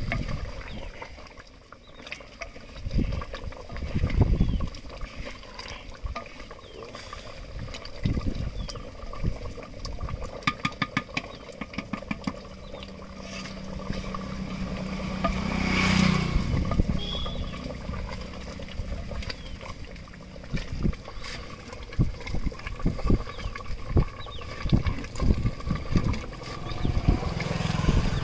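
A person eating mutton curry and rice: irregular chewing and mouth clicks with low bumps. A low hum swells to a peak about midway and then fades.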